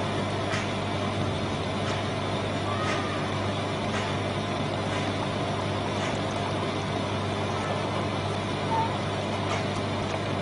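Steady mechanical hum with a hiss, unchanging throughout, with a few faint clicks.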